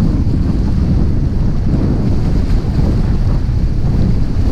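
Steady wind buffeting the microphone, loud and low, over small waves washing against jetty rocks.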